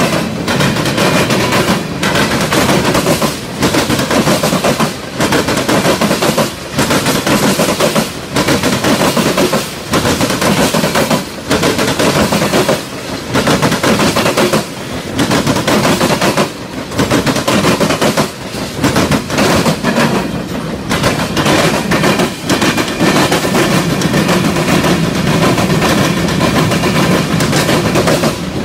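Norfolk Southern freight cars rolling past at close range, steel wheels clattering rapidly on the rails. The loudness dips briefly every second or two as each car goes by.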